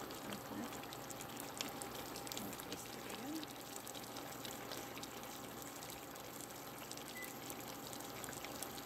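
Pot of tamarind soup simmering on the heat: a quiet, steady bubbling with many small pops and ticks.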